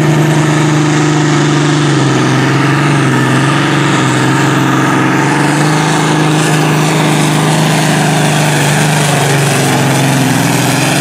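Diesel engine of a Massey Ferguson pulling tractor running hard at full throttle as it drags the weight sled, loud and steady. Its pitch drops a little about two seconds in, then holds.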